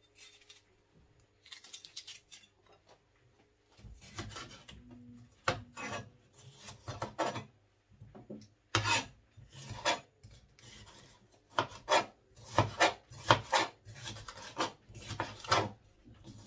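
Kitchen knife slicing a red bell pepper on a cutting board: a run of short, irregular cuts, each a quick knock of the blade on the board. Faint at first, the cuts come thicker and louder from about four seconds in.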